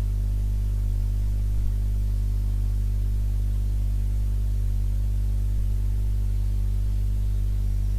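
Steady low electrical hum that does not change, made of a deep tone with a buzzy stack of overtones above it.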